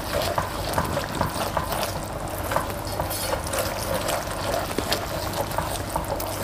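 Gravy thickened with cornstarch slurry bubbling at a boil in a frying pan while a silicone spatula stirs it: a steady hiss with many small pops.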